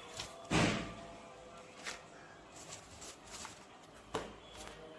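Handling noise from PC parts and their packaging being picked up and set down: a loud rustling knock about half a second in, then a couple of lighter clicks.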